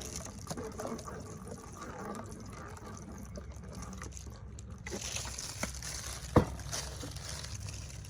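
Soy sauce being poured from a bottle into a bowl of marinade, with a few small clicks and one sharp knock about six seconds in.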